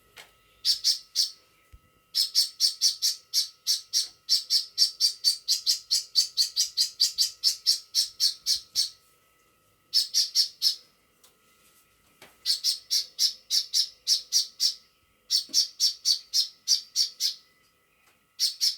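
A small bird, taken for a hummingbird, giving runs of sharp, high chip calls at about four to five a second, with short pauses between the runs. The calls are agitated, the bird protesting at a closed door.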